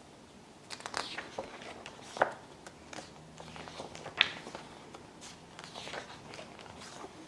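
Pages of a thin paper photo book being turned by hand: a series of soft paper rustles and flicks, the sharpest about two seconds in and again about four seconds in.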